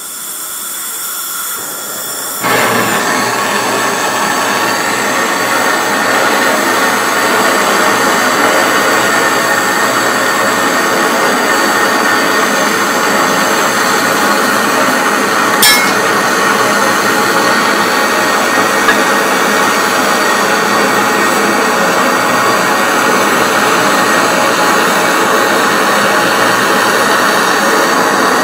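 Handheld butane canister torch: gas hisses from the nozzle, then the flame lights about two and a half seconds in and burns with a loud, steady hiss. One sharp click comes about halfway through.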